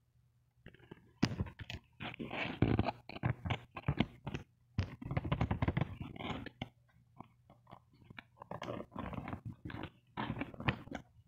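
Cardboard box being handled and opened by hand: irregular scraping, rubbing and crunching of cardboard, starting about a second in.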